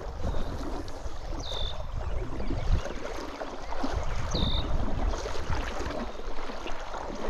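Trout stream water running and gurgling, with low rumbling knocks on the microphone and two short high chirps, the first about a second and a half in and the second about four and a half seconds in.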